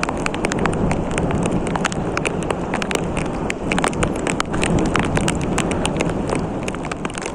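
Rain falling, with many irregular sharp taps of close raindrops hitting a surface over a steady wash of noise.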